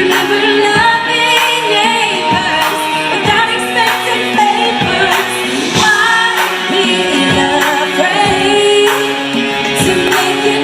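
A live pop song: a woman singing over a band, with a steady drum beat.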